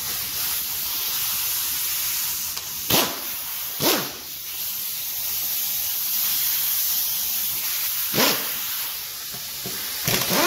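Handheld power tool run in four short bursts, near three, four, eight and ten seconds in, spinning out the lower crankcase bolts of a two-stroke jet ski engine. The bursts are heard over a steady hiss.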